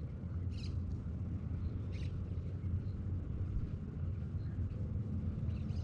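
Outdoor background sound: a steady low rumble with a couple of faint short chirps, about half a second and two seconds in.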